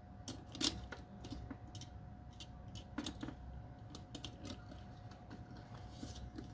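Irregular small clicks and taps of wires and a cable being handled and pushed into a plastic power-bar casing, the loudest about half a second in, over a faint steady hum.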